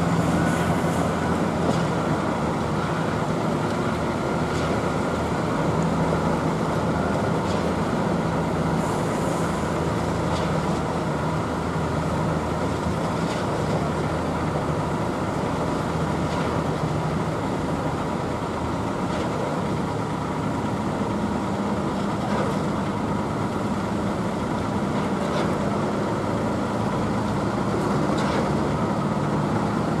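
Diesel engines of concrete mixer trucks and truck-mounted concrete boom pumps running steadily during a concrete pour, a continuous low drone with faint knocks every two to three seconds.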